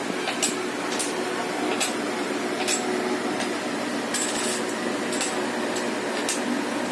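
A series of short, sharp clicks or taps at irregular spacing, roughly one a second, over a steady background hum. A brief hiss comes about four seconds in.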